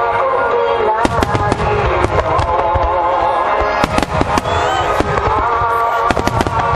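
Aerial fireworks bursting one after another, with sharp cracks and crackle, clustered most thickly about a second in and again in the second half. Music with a wavering melody plays under them throughout.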